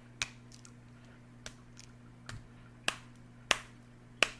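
Homemade borax slime squeezed and worked in the hands, letting out sharp little pops and clicks, about six of them, the loudest three in the second half.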